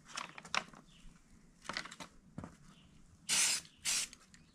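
Aerosol spray-paint can sprayed in two short bursts about three seconds in, through a paper stencil held over the magazine. A few short clicks and rustles come first.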